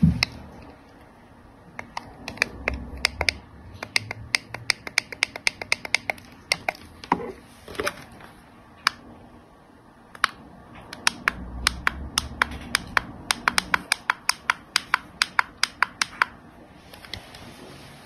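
Plastic buttons on electric heating-pad hand controllers clicking as they are pressed over and over: two quick runs of sharp clicks, about three a second, with a short pause between them.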